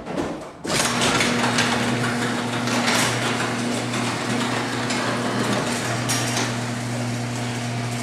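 Electric garage door opener running as the sectional garage door lowers: a steady motor hum under the noise of the door rolling down its tracks, starting about a second in.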